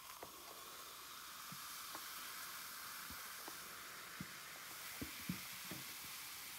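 Vinegar and baking soda fizzing in a glass just after the baking soda goes in: a steady, soft hiss of carbon dioxide bubbles, with a few faint pops and clicks.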